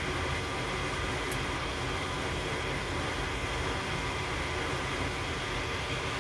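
Goodman gas furnace running on a test start with a freshly cleaned flame sensor: a steady fan whoosh over a low hum.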